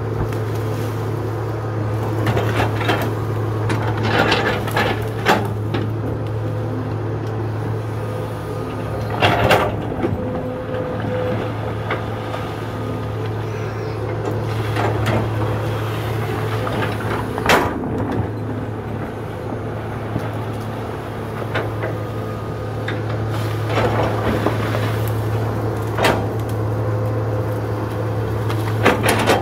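Excavator's diesel engine running at a steady low drone, with irregular metallic clanks and knocks every few seconds as the machine works.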